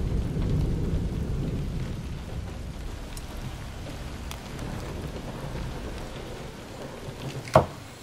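A low rumbling noise fades away over the first several seconds. Near the end comes a single sharp knock of a cleaver striking a wooden cutting board.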